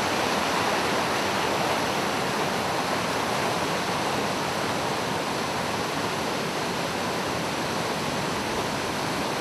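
Rushing river water: a steady, even rush of fast-flowing current.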